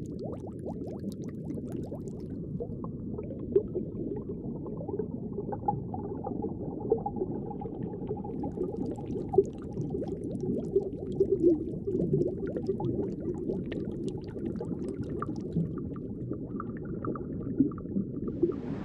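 Low, steady underwater bubbling and gurgling of water, with scattered small pops and clicks.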